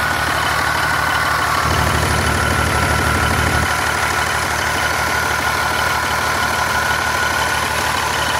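BMW E46 330xd's straight-six diesel idling steadily, with a steady whine above the engine's even beat. The owner calls the noise a blender-like sound, a bit like a chain, and asks whether it comes from a belt tensioner pulley that seems to be moving.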